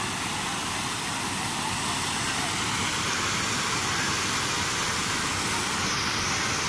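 Steady rush of water spilling over a low concrete weir and splashing into the channel below.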